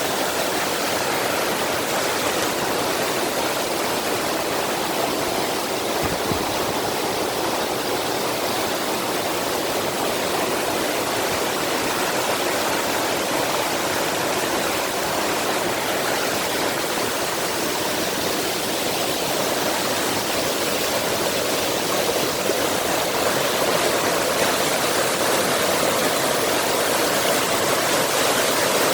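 Mountain valley stream rushing steadily, growing slightly louder in the last several seconds.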